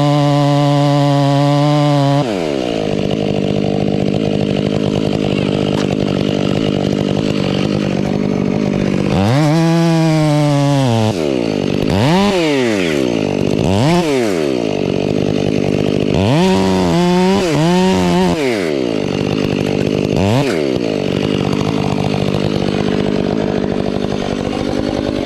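Two-stroke chainsaw running at high revs for about two seconds, then dropping back and being revved up and down in short swoops several times before settling to a steadier run near the end.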